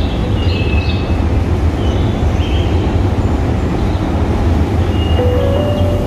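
Train crossing a steel truss railway bridge overhead: a loud, steady heavy rumble with a few brief high squeals.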